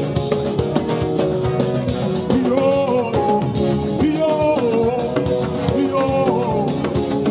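Upbeat band music with a steady drum beat and guitar. A wavering melody line, much like a voice, comes in about two seconds in.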